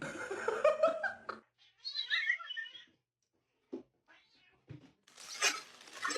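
A domestic cat meowing in a long, drawn-out, wavering call, followed by a few shorter, higher calls. A couple of soft knocks follow, then a burst of noise near the end.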